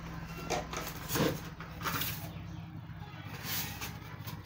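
Small knife cutting through a sheet of thermocol (polystyrene foam) in a few short, separate scraping strokes, over a steady low hum.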